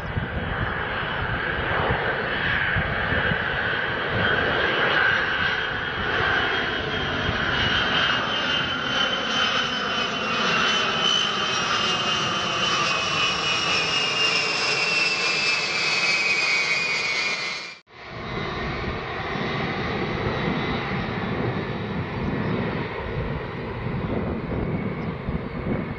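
Boeing WC-135 Constant Phoenix's four TF33 turbofan engines on landing approach, passing low overhead: a loud jet rumble with a high whine that falls in pitch as the aircraft goes by. The sound cuts out for an instant about two-thirds of the way through, then the engine noise carries on as the aircraft moves away.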